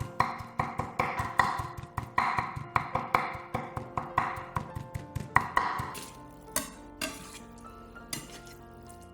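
Kitchen knife chopping rapidly on a wooden cutting board, several strokes a second, stopping about six seconds in. Soft background music runs underneath and is left alone at the end, with a few scattered knocks.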